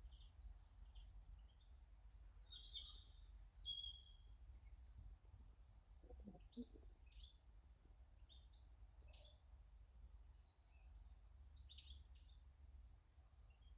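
Faint, scattered chirps and short calls of small garden birds, with a couple of soft knocks about six seconds in, over a low steady background rumble.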